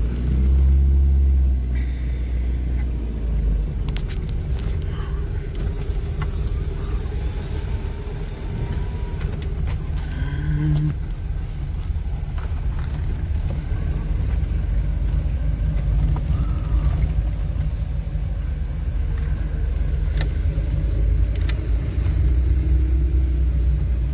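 A car being driven slowly, heard from inside its cabin: a steady low engine and road rumble with a few brief clicks and knocks.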